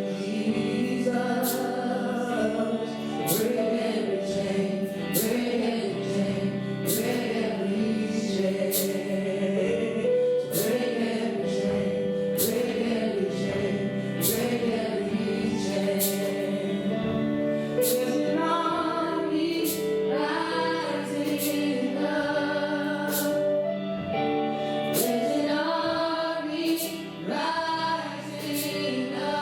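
Church worship music: singers and a choir performing a gospel-style worship song over band accompaniment with a steady beat.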